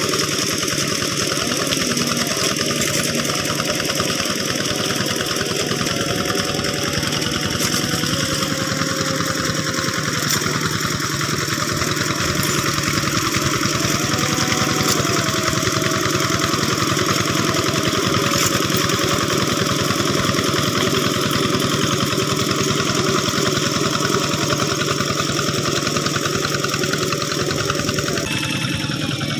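Diesel engine of a two-wheel hand tractor running steadily, with a sudden change in its sound about a second before the end.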